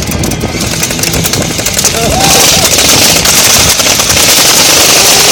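Airsoft guns firing in rapid automatic bursts, a dense crackle of shots that grows louder and thicker about two seconds in as more guns join.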